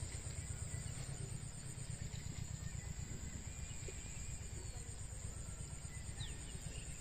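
Outdoor ambience: a low, fluttering rumble of wind on the microphone under a steady high-pitched insect drone, with a few faint bird chirps.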